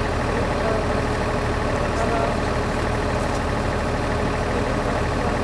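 A fire engine's engine idling with a steady low hum.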